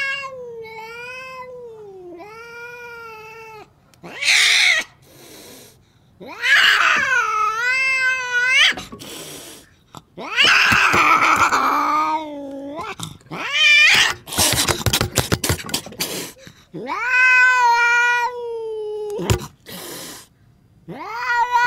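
An angry domestic cat yowling in long, wavering cries, broken by hisses and, about two thirds of the way through, a burst of spitting as it lunges.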